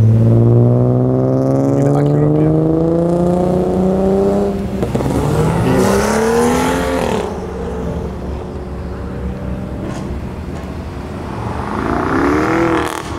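Cars accelerating hard one after another as they drive past. The first engine note climbs steadily in pitch for about four seconds. A second car revs up about five seconds in and drops off sharply near seven seconds. A third short rev rises and falls near the end.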